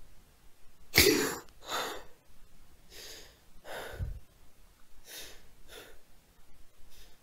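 A person gasping sharply about a second in, then breathing heavily in and out, with a low thud about four seconds in.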